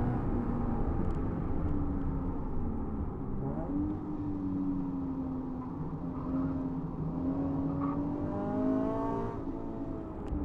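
Scion FR-S's 2.0-litre flat-four boxer engine heard from inside the cabin. It slows under braking from high speed, with a quick rise in revs about three and a half seconds in as it shifts down from fourth to second gear. It then holds a fairly steady note through a slow corner in second and rises as the car accelerates out.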